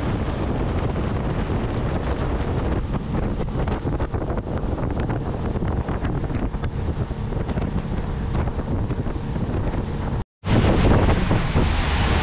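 Wind buffeting the microphone aboard a moving boat, with the rush of water against the hull, for about ten seconds; it cuts off abruptly and is followed by a louder, steady low rumble.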